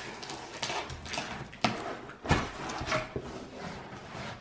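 Large cardboard shipping carton being opened by hand: flaps pulled up and cardboard scraping and knocking in a string of sharp strokes, the loudest a little past halfway.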